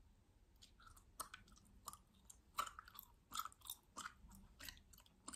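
Gum being chewed: a faint run of short, irregular clicks, about three a second.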